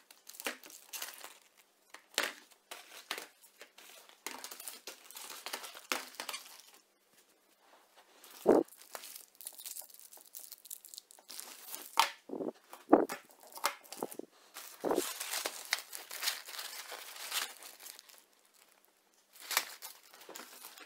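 Plastic-wrapped packs of fireworks being handled: irregular crinkling and rustling of the cellophane packaging, with a few knocks as boxes are set down on a wooden table, the loudest about a third of the way in.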